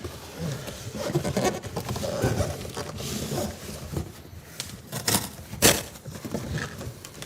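Handling noise from shifting and scraping a boxed computer case: irregular rustles, scrapes and knocks, with two sharp knocks about five seconds in.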